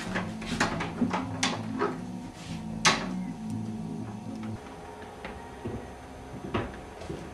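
Several sharp knocks and clicks of a door being handled, the loudest about three seconds in.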